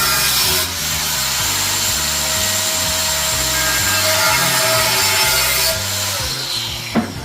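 A power grinder working on the cracked alloy wheel, its whine sliding down as it spins down near the end, over background music with a steady bass line.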